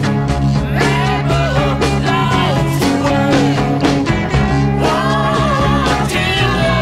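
Rock music with a steady beat and a gliding melody line over it.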